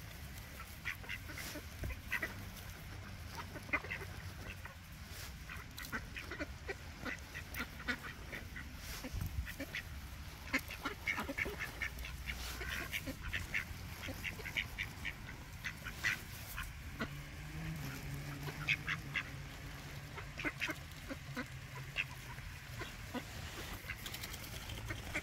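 Animal calls: many short calls repeating throughout, over a low steady rumble.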